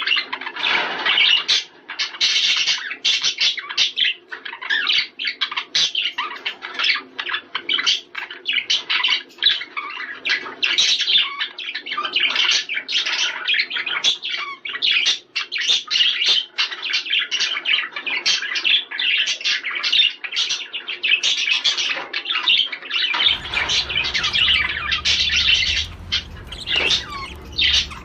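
Male budgerigar warbling: a fast, unbroken chatter of chirps and squawks, the kind of male song used to stimulate budgies into breeding. A low steady hum comes in about three-quarters of the way through.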